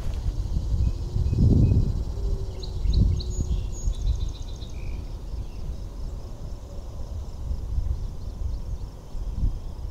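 Outdoor ambience: a low rumble on the microphone that swells twice in the first few seconds, and birds chirping faintly around three to four seconds in.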